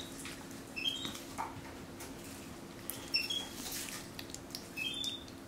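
Capuchin monkey giving short, high chirps in quick rising runs, about a second in, near three seconds and again near five seconds, over soft clicks and squelches of slime being worked inside a plastic bag.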